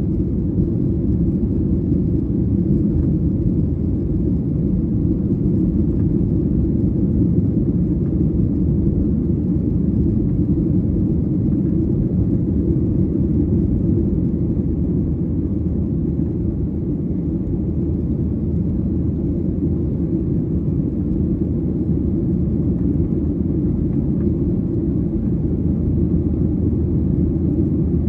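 Boeing 737-800 cabin noise in flight: the steady, loud low rumble of the jet engines and airflow, heard from inside the passenger cabin.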